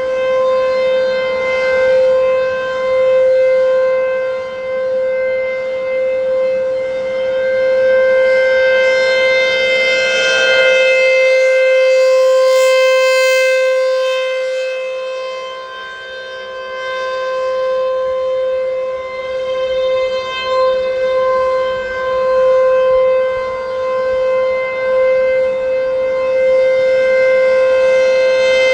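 American Signal T-135 AC/DC rotating outdoor warning siren sounding a steady tone up close, on rectifier power. The pitch holds steady while the level swells and fades as the rotating horn turns.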